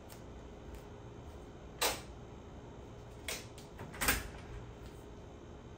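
Three short, sharp clicks in a quiet room, the first the loudest, the others about a second and a half and then a second later: wall light switches being switched off, the last as a hand works the door's electronic lock.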